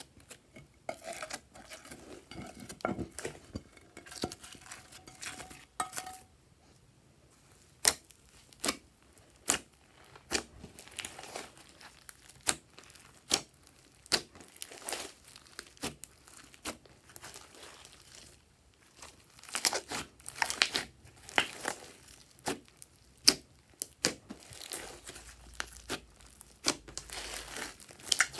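Hands squishing, pressing and stretching a large mass of glossy slime: irregular sticky pops, crackles and tearing sounds as the slime is pulled apart and pressed down, busiest near the end.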